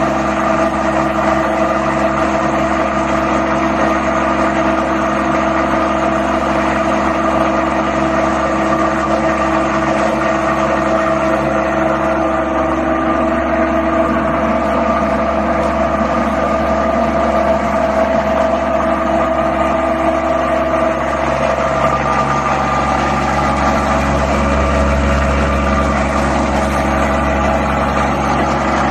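Plastic agglomerator machine running loudly and steadily, with a constant motor whine and several held tones over a low hum. About twenty seconds in, some of the lower tones drop away and a deeper rumble grows.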